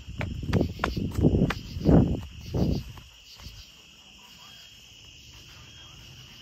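Crickets chirping steadily. For the first three seconds they are overlaid by loud, uneven thumps and rustles close to the microphone.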